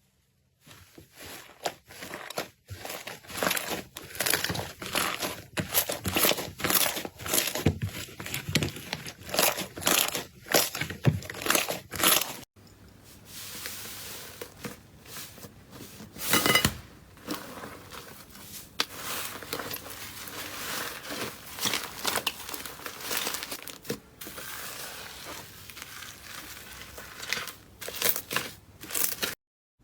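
Slime being squeezed and pressed by hand, making dense crackling and popping, typical of crunchy slime. About twelve seconds in the sound changes abruptly to a quieter, softer crackle with an occasional louder pop.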